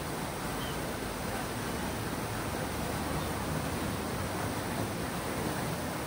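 Fountain water falling and splashing in a steady, even rush.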